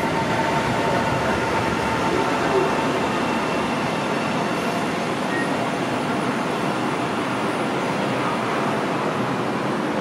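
Alstom Citadis Spirit light-rail train rolling in along the platform and slowing to a stop: a steady rumble and hiss of wheels, with a faint whine from the drive.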